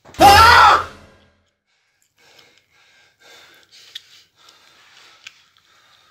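A loud human scream lasting about a second, its pitch wavering and falling, followed by faint rustling and small clicks.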